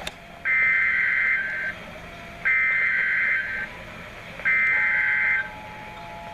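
Emergency Alert System SAME header: three bursts of warbling data tones, each about a second long and about two seconds apart, that encode the severe thunderstorm warning ahead of the spoken message.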